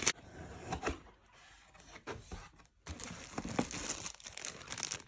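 Packaging from a delivered steering wheel being handled and pulled apart: crinkling and rustling with small clicks, quieter at first, a brief pause about halfway, then louder, busier rustling.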